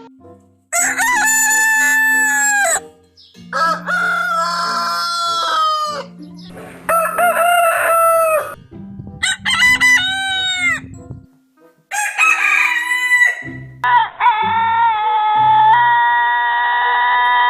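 Roosters crowing, about five separate cock-a-doodle-doo calls one after another, each a couple of seconds long. From about fourteen seconds in, a steady held tone takes over, like a horn or whistle, and shifts up in pitch about two seconds later.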